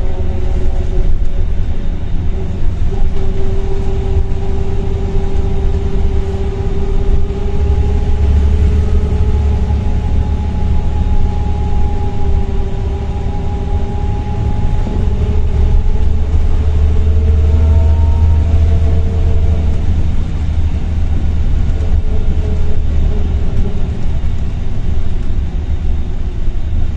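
Volvo B7RLE single-decker bus heard from inside the saloon: the diesel engine running under a low rumble, with a loud whine from its ZF automatic gearbox that rises and falls in pitch as the bus gains and eases off speed.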